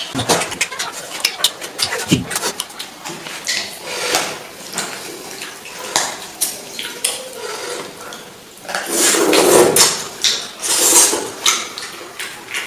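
Eating sounds: dishes and utensils clinking and scraping in many short clicks and knocks, with louder rustling bursts about nine and eleven seconds in.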